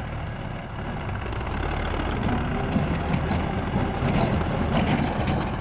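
Farm tractor's diesel engine running under load as it pulls a tipping trolley through soft ground, getting louder about a second and a half in. Short clattering knocks join in during the second half.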